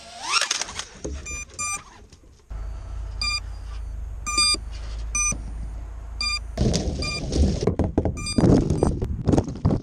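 Brushless motors of an FPV racing quadcopter stuck in a tree give a brief rising whine, then a string of short, high electronic beeps sounds over a steady low hum. From about two-thirds of the way in, a rough rustling and crackling sets in, the props or frame working against the branches.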